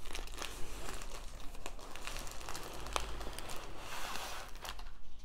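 Plastic wrapping crinkling and rustling as a plastic-wrapped rolled diamond painting canvas is slid out of a cardboard mailing tube, with many small clicks; it dies down near the end.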